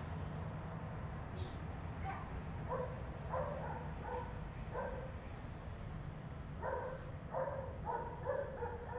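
A dog barking in short, repeated barks, in two spells of several barks each, over a steady low rumble.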